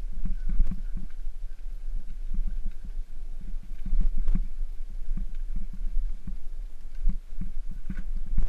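A bicycle riding over a rough gravel and stone track: a steady low rumble with irregular knocks and rattles as the wheels hit the bumpy surface.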